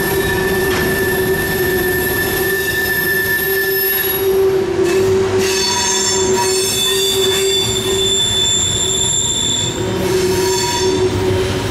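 Grain train cars' steel wheels squealing as they roll through a tight curve: several steady, high-pitched whining tones sound at once, and a set of shriller tones joins in about halfway through, dropping out again near the end.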